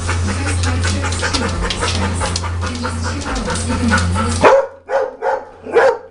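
A dog barks four times in quick succession, loud, starting about two-thirds of the way in. Before the barks there is a steady low hum with dense rustling and clicking.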